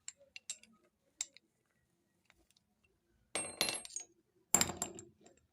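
Small metal pieces being handled and clinking against each other: a few light clicks, then two short clusters of sharp metallic clinks with a brief high ring, about three and a half and four and a half seconds in.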